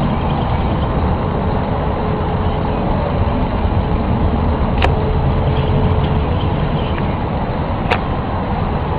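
Loud, steady low rumbling noise of the kind recorded as the 2011 'strange sounds', with a faint steady tone over it and a couple of sharp clicks about five and eight seconds in.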